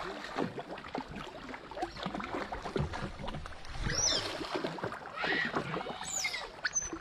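Water splashing and churning as an otter on a tether thrashes and lunges after a fish in shallow river water. Several short high chirps come in from about four seconds in.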